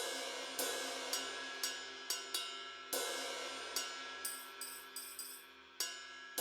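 Electronic cymbal- and hi-hat-like hits played from a DAW, starting abruptly out of digital silence. Each strike decays with a hiss, coming irregularly about every half second over a steady drone of held tones.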